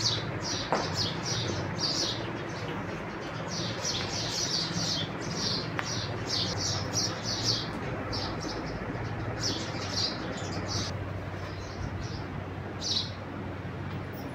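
Small birds chirping: quick high-pitched chirps several times a second, thinning out after about eleven seconds, over a low steady hum.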